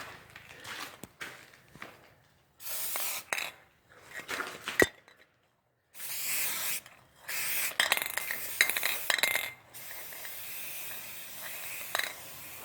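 Aerosol spray paint can spraying in several short hissing bursts with gaps between them, then a weaker steady hiss near the end: the can is nearly empty and running out of paint.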